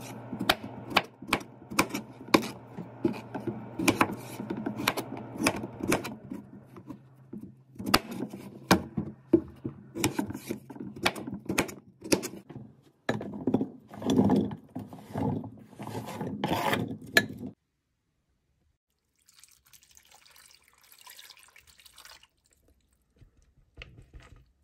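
Chef's knife cutting potatoes on a cutting board: a run of irregular knocks as the blade strikes the board. The chopping stops about three-quarters of the way in, followed by faint rustling and a few soft knocks.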